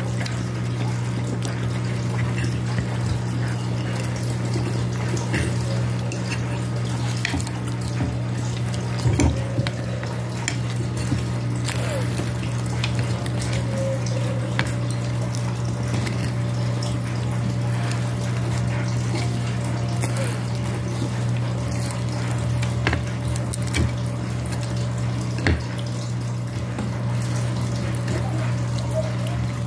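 A dog eating pizza off a ceramic plate, with scattered light clicks of a metal fork against the plate. Under it runs a steady low hum with a light hiss.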